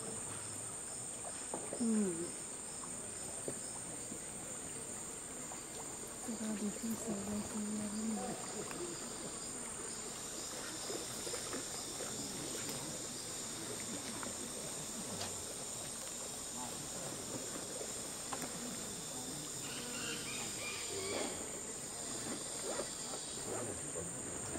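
Amazon rainforest insects calling in a steady, high-pitched drone.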